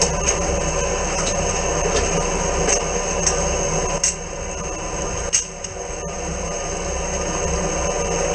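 High-pressure drain jetter's engine and pump running steadily, with scattered sharp clicks and knocks from the hose being worked in the manhole, the loudest about five seconds in.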